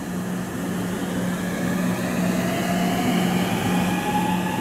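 683 series electric train at the platform, with a steady low hum and faint whines that rise slowly in pitch from about two seconds in.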